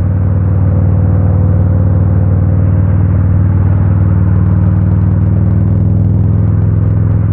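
Harley-Davidson Road King's V-twin engine running steadily at cruising speed, an even low drone with no revving.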